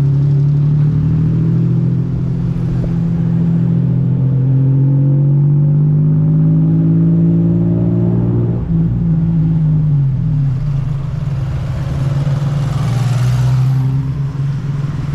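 Tuk-tuk engine running under way. Its pitch climbs as it accelerates, drops sharply about two-thirds of the way through at a gear change, then climbs again.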